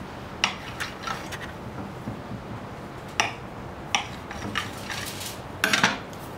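Kitchen knife blade clicking against a glass cutting board as it cuts through bread dough: scattered sharp clicks a second or so apart, then a short clatter just before the end as the knife is laid down on the board.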